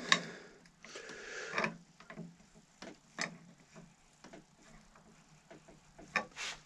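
Steel pliers clicking and knocking against metal while a stainless steel touch hole liner is turned tight into a flintlock barrel: a string of short, irregular clicks, the sharpest near the start, at about three seconds and near the end.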